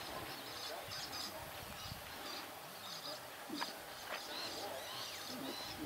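Quiet open-air ambience: small birds chirping now and then, with faint distant voices talking low.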